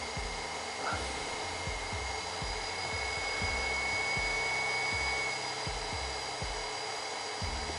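T-862++ infrared soldering station running while it heats a laptop GPU for a reflow: a steady whir with a faint high whine, and now and then a soft low thump.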